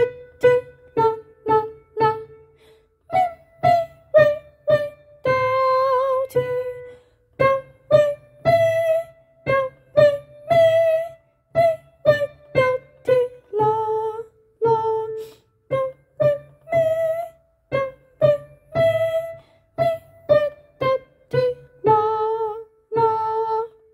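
Digital keyboard played with the right hand: a simple melody of single notes in a steady rhythm, mostly short notes with a few held longer, stopping just before the end.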